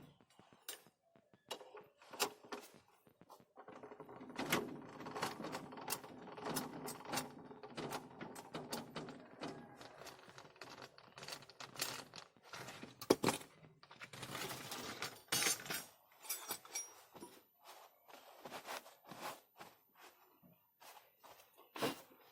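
Hand tools working on metal parts: a string of irregular clicks, clinks and knocks, thickening into denser clattering for several seconds in the middle.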